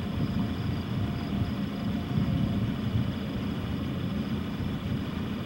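Wind buffeting the camcorder microphone: a steady low rumble that flutters unevenly, with no pauses.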